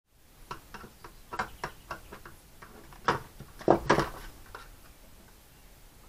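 A run of small clicks, several a second, from a hand screwdriver driving 4 mm machine screws through a lock washer into the threaded inserts of a 3D-printed plastic bracket. This is followed by a few louder knocks about three to four seconds in, as the screwdriver is put down and the plastic switch-panel assembly is handled on the bench.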